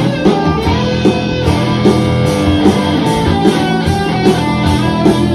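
Electric guitar playing along with a rock backing track that has a steady drum beat.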